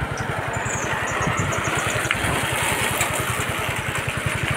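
Motorcycle engine running at a low, steady speed close by, its exhaust pulsing evenly and fast.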